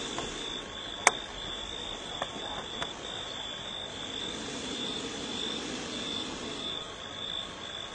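Night chorus of insects trilling steadily at a high pitch, with frogs croaking underneath. There is one sharp click about a second in and two fainter ticks shortly after.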